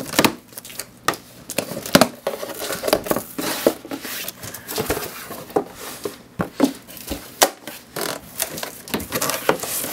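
A cardboard box being opened: a box cutter slitting the packing tape, then the cardboard flaps pulled open and packing rustled, with irregular scrapes, taps and crinkles.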